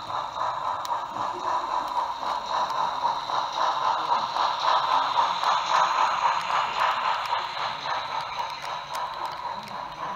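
HO scale model freight train rolling past behind a Light Pacific steam locomotive: a steady rhythmic clatter of small wheels on the rails, with sharp clicks over joints. It is loudest about halfway through and then slowly eases off as the cars go by.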